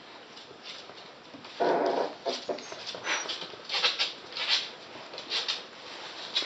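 West Highland White Terrier puppies whimpering and yipping as they play-fight. A louder cry comes about a second and a half in, followed by a string of short, high squeaks.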